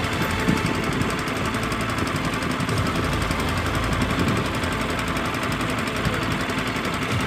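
Small boat's engine running steadily with a fast, even beat.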